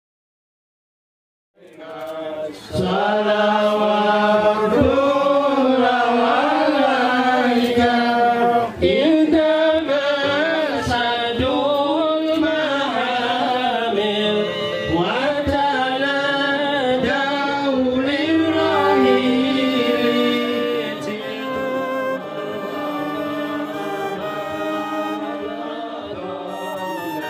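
Silence for about a second and a half, then a song starts: a singing voice over instrumental backing.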